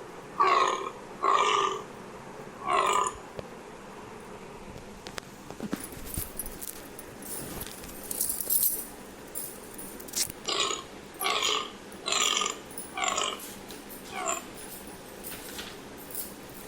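Deer calling in short, pitched calls: three in quick succession at first, then, after a pause of several seconds, a run of about seven more.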